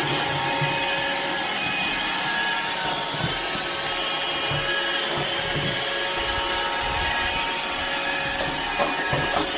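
Robot vacuum cleaner running steadily on a hardwood floor, a constant whirring hum with a few light knocks about nine seconds in.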